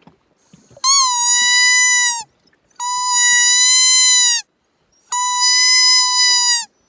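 Homemade fawn-in-distress deer call, a piece of deer antler with a squeaky toy whistle inside, sounded three times: three long, high, steady bleats of about a second and a half each, each dropping in pitch as it ends, imitating a fawn in distress to draw deer out.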